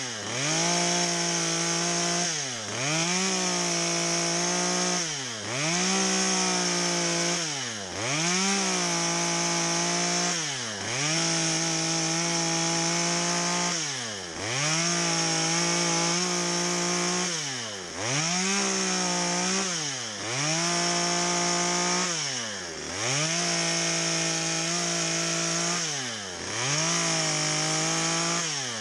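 Two-stroke carving chainsaw with a narrow dime-tip bar, cutting into a log at high revs. The throttle is eased off and squeezed again every two to three seconds, so the engine note dips sharply and climbs back each time as the carver makes cut after cut.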